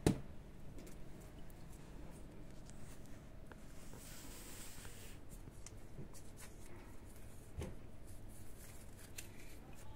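Faint scattered rustling and small clicks, with a sharp click at the very start and a brief soft hiss about four seconds in.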